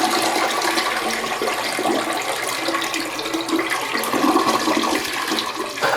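Toilet flushing: a loud rush of water that stops abruptly near the end.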